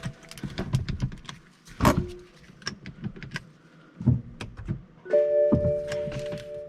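Keys jangling and small clicks with a sharp knock about two seconds in, but no starter cranking or engine running: the car does not respond to the start attempt. From about five seconds in a steady electronic tone of several pitches sounds and holds.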